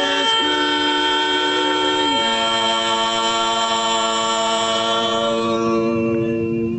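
Women's barbershop singing, a cappella, in close four-part harmony. The lowest part steps down about two seconds in to a final chord, which is held and then cut off together.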